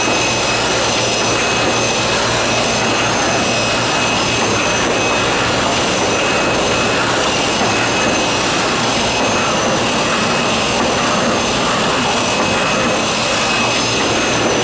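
Sakurai SC 102 DX screen-printing line running: a loud, steady rush of machine air noise with a steady high whine over it.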